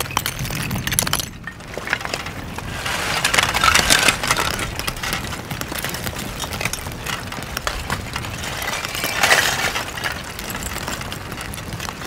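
Advancing lava flow front crackling: its cooling crust cracks and clinks continuously, like broken glass. The crackling swells louder about three to four seconds in and again near nine seconds.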